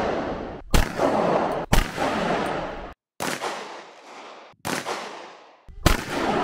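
A string of pistol shots, about five, roughly a second apart, each followed by a long, fading echo.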